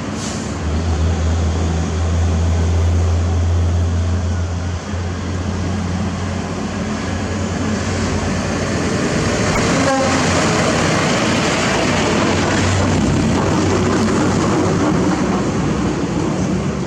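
Heavy diesel engine running loudly, with a steady deep hum and broad mechanical noise.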